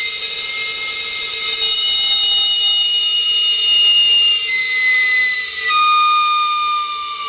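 A long, shrill whistle sounding several steady tones at once, sagging slightly in pitch and shifting note a couple of times.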